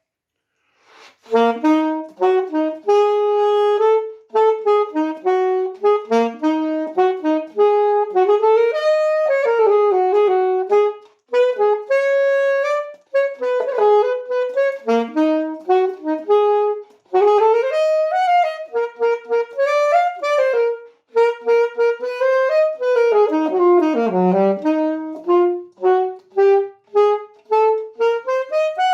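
Unaccompanied saxophone playing a melody in phrases with short breaks between them, starting about a second in.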